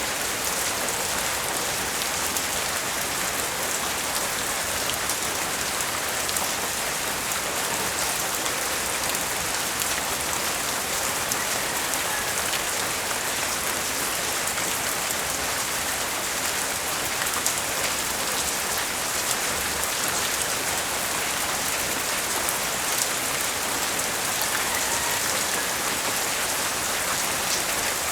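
Steady rain falling, with individual drops ticking close by through an even hiss.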